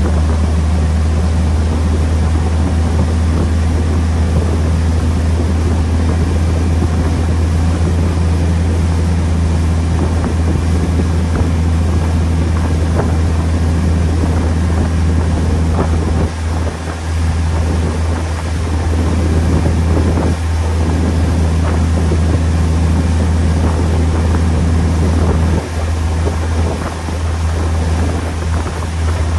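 A boat's engine running steadily underway: a loud, even, deep drone, with wind on the microphone.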